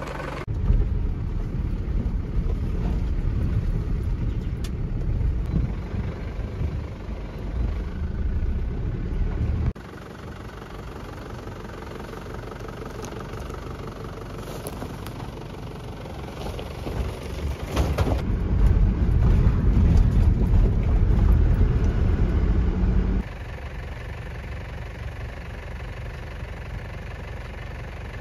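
Ute's engine running as it crawls along a rough bush dirt track: a loud low rumble that drops abruptly to a quieter level about ten seconds in, comes back loud a little after halfway, and drops again near the end.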